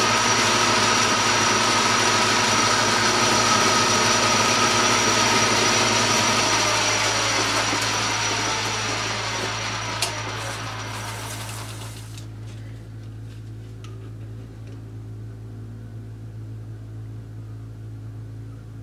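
Metal lathe running, turning down a small metal pin: a steady whine with the hiss of the cut. About seven seconds in it starts to wind down, and by about twelve seconds it has stopped, leaving a low steady hum.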